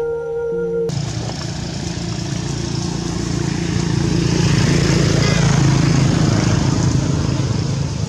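A flute tune breaks off suddenly about a second in, giving way to a motor engine running steadily, growing louder toward the middle and easing slightly near the end.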